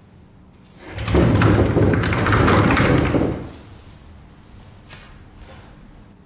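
Sliding door pulled along its track by its recessed handle: a loud, noisy rolling slide lasting about two and a half seconds. A faint click follows about a second and a half later.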